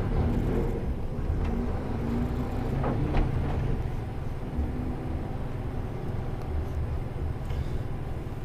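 Diesel engine of a Mercedes-Benz Antos 1824 18-tonne lorry running steadily at low speed while the truck manoeuvres, a constant low rumble with a couple of faint clicks about three seconds in.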